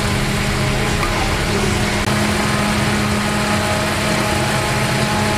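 Silkworm pupae deep-frying in a large wok of hot oil over a gas burner: a continuous sizzling hiss under a steady, engine-like hum.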